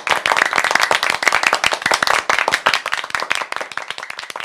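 Applause: many hands clapping together in a dense, continuous patter, easing off somewhat near the end.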